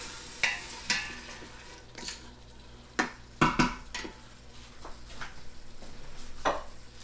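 A wooden spoon stirs and scrapes gandules, onion and sofrito in a stainless steel Instant Pot inner pot, knocking against the pot several times, the loudest knocks a little past midway. A light sizzle of the food sautéing runs underneath.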